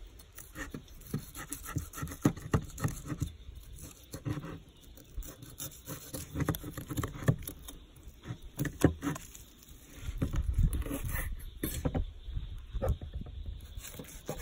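Chef's knife cutting a seared T-bone steak off the bone and slicing it on a wooden cutting board: a run of short, irregular cutting and tapping sounds, with a low rumble joining about ten seconds in.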